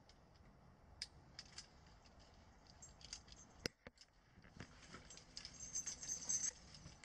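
Dry grass and brush crackling and snapping as someone pushes through it on foot: scattered sharp clicks, one sharper snap near the middle, and busier crackling near the end.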